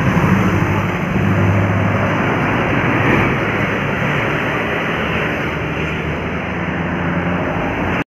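Large bus passing close by on the road: steady engine drone with heavy tyre and road noise, a little louder in the first few seconds.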